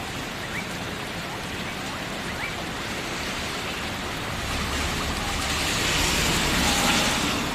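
Steady rain hiss that swells louder in the second half, then eases slightly near the end.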